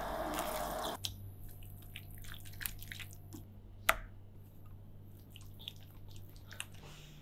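Silicone spatula stirring thick, wet tomato risotto in a stainless steel pan: soft squelching and scraping, with a sharp tap against the pan about four seconds in. A louder liquid hiss from the pan cuts off abruptly about a second in.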